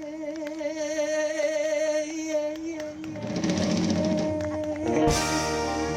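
Live soul band with a horn section: a long held note with vibrato, then a busier drum-heavy stretch, and about five seconds in the full band comes in together with horns and a cymbal crash.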